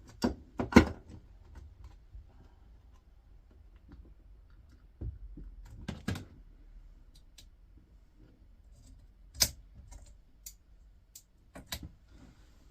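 Scattered clicks and light knocks of a screwdriver and small metal screws and parts being handled while a flathead screw is undone from a small electrical unit's casing. There are about seven separate strokes with quiet gaps between them.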